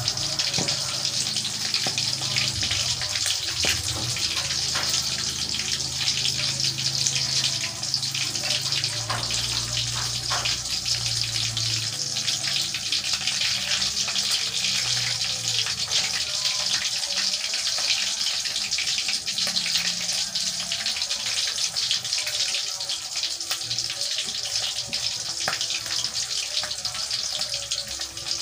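Galangal-spiced chicken pieces frying in hot oil in a wok: a steady sizzle with fine, continuous crackling.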